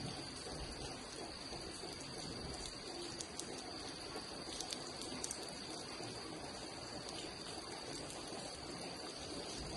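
Steady rain hiss with scattered small drip ticks, under a continuous high-pitched insect drone.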